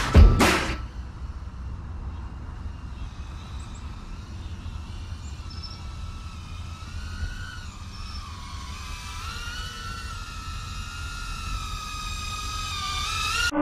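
FPV quadcopter's brushless motors whining, the pitch sliding up and down with the throttle, over a steady low rumble. The backing music cuts off about half a second in.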